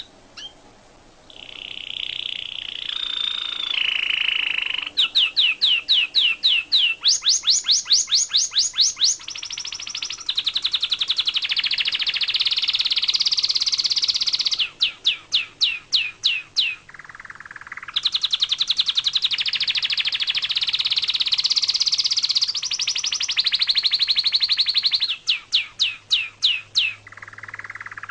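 Small songbird singing a long, loud song of rapid repeated trills and chirps, changing from one trill to the next with brief pauses.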